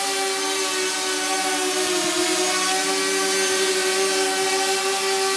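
Keyshare Kimon quadcopter drone hovering, its motors and propellers giving a steady whine of several stacked tones over a rush of air. The tones shift slightly in pitch as the motors correct the drone's position.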